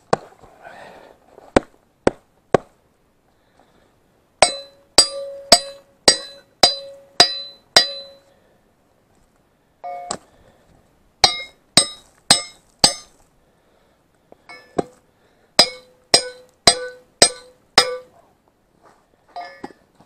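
Hammer blows on a steel loader-boom part, each strike ringing out like metal. There are a few single blows, then three runs of six or seven strikes at about two a second with short pauses between. He is knocking at the piece to break it off.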